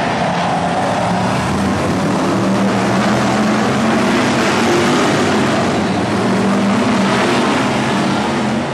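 A pack of V8-engined BriSCA F1 stock cars racing around the oval, their engines running loud and steady.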